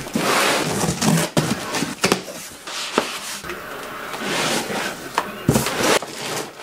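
Unboxing noise: a cardboard box and foam packing being opened and handled, with rustling and scraping and several sharp knocks as the 3D printer's parts are lifted out.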